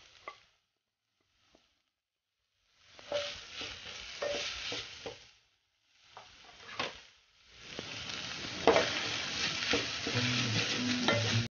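Diced vegetables sizzling in a steel pan while a wooden spoon stirs and scrapes through them. The sound comes in several stretches broken by short silences, with one sharp knock of the spoon against the pan, and cuts off suddenly near the end.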